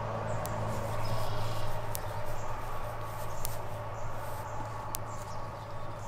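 Electric fence ticking: the energizer's pulses on the sheep netting give sharp clicks about every second and a half, four in all, over a steady low hum.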